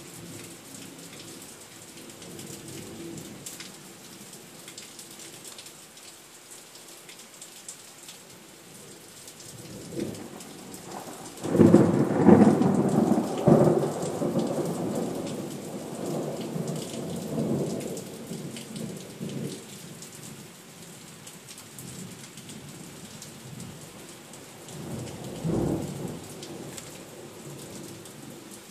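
Steady rain with thunder. A loud thunderclap breaks about eleven seconds in and rumbles on for several seconds, and a shorter roll of thunder comes near the end.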